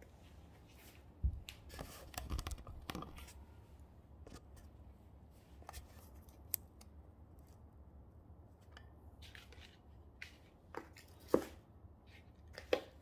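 Hands working coarse potting mix around a foxglove's root ball in a plastic pot set in a plastic basin: scattered rustles and scrapes of soil with light knocks of the plastic pot, and a dull thump about a second in.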